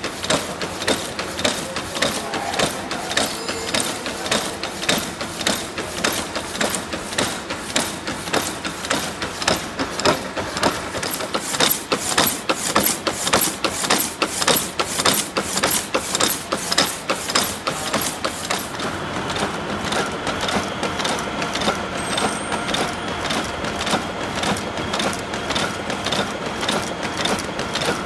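Power hacksaw running, its blade stroking back and forth through a steel round bar with a regular clack on each stroke. About two-thirds of the way through, the strokes grow softer and the machine settles into a steadier running sound with a faint whine.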